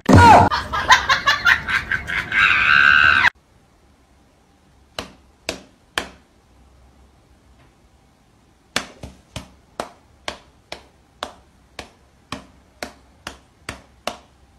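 A loud, wavering cry for the first three seconds. Then a run of sharp slaps as a cat's paw smacks against a person's open hand: three about five seconds in, then a quick series of about a dozen at roughly two a second.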